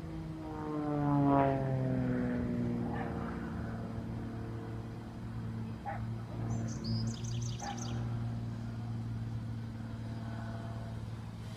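Propeller airplane flying past: its engine drone drops sharply in pitch about a second in as it passes, then goes on as a steady lower drone. A bird chirps briefly midway.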